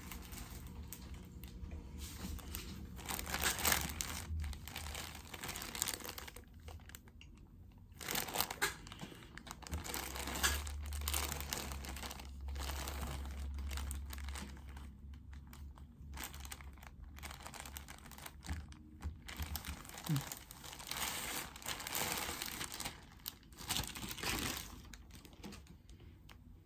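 Packaging for new clothes crinkling and being torn open by hand, in irregular bursts with short pauses between them.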